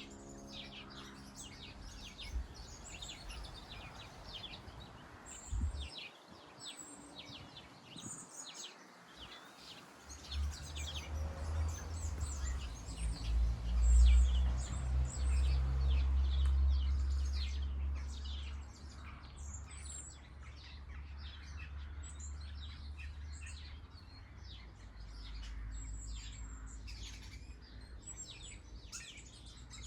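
Small birds chirping with many short, high calls throughout. A low rumble swells about a third of the way in, is loudest near the middle and fades away again.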